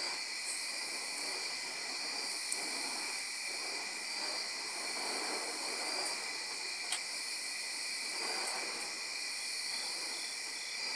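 A steady, unbroken chorus of insects trilling at several high pitches. Under it, soft whooshes rise and fade every couple of seconds as the burning wicks of spinning fire staffs swing past.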